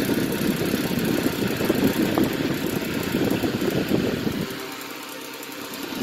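Mid-to-late-1940s Sears Roebuck 12-inch oscillating table fan running with a loud, fluttering rattle. About four and a half seconds in the rattle eases and turns quieter, then comes back at the end.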